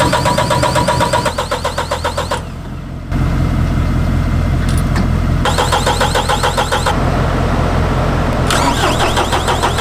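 Mahindra compact tractor's diesel engine turned over by its starter in three rhythmic cranking bursts, the first and longest ending about two and a half seconds in, without catching. A steady engine runs underneath. The engine will crank but not start, which the owner puts down to it being too frozen.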